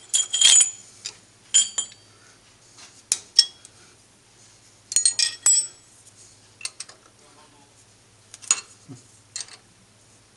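Steel hex keys clinking and tapping against the cast-iron lathe bed and its socket-head bolts as the gap-piece bolts are worked loose. A dozen or so sharp metallic clinks come at irregular intervals, some ringing briefly, with a quick cluster about five seconds in.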